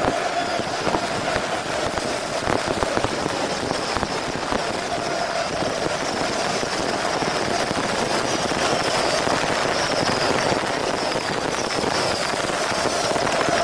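Dense, steady roar of a large stadium crowd, with scattered sharp firecracker bangs, one clearer than the rest about two and a half seconds in.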